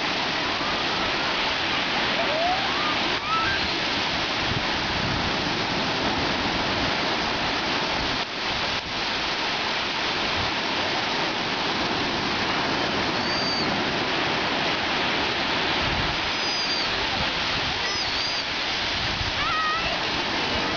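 Sea surf washing steadily, an even rush with no break, with a few faint high gliding cries now and then.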